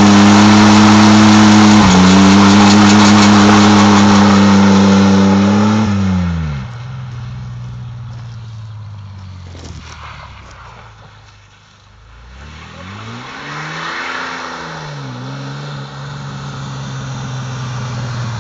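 Ford F-150 pickup's engine held at high revs through a burnout, with the hiss of spinning rear tyres over it, for about six seconds. The revs then drop and the engine fades away. Later it grows louder again, revving up and down twice as the truck comes back.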